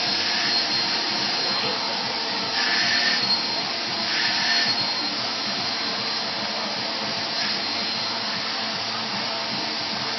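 Vacuum cleaner running steadily while being used to groom a dog, a thin high whine over its suction hiss. The hiss swells louder briefly around three and four and a half seconds in.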